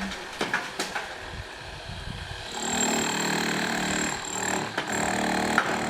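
Construction-site machinery: a few sharp knocks early on, then a machine engine starts running steadily about two and a half seconds in, with a thin high whine above it and another sharp knock near the end.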